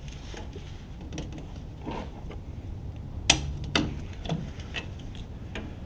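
Hand cutters snipping through the damaged factory plastic shield on a rear shock absorber. A run of sharp snaps and clicks, the two loudest a little over three seconds in, about half a second apart.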